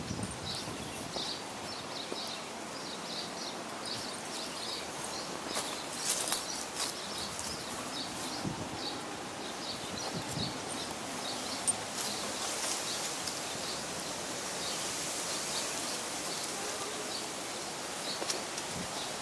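Outdoor ambience: steady rustling and light scuffing around a dog on a leash on dry grass and leaves, with a short high chirp repeating about twice a second through the first half or so, fading out later.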